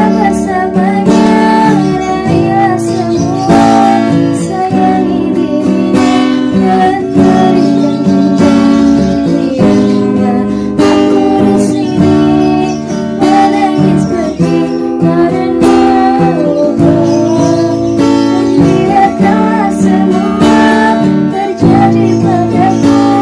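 Instrumental break of an acoustic band cover of a pop ballad: strummed acoustic guitar chords with a wavering lead melody line on top.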